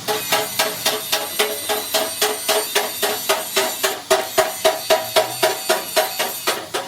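Rapid hammer blows on a steel part, about four a second, each strike ringing with the same pitch.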